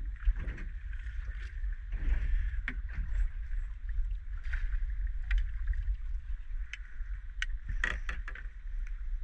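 Water lapping and slapping against a small boat's hull, over a steady low rumble of wind on the microphone. Scattered sharp splashes and clicks come as a landing net is dipped into the water to scoop up a squid, with a cluster of them near the end.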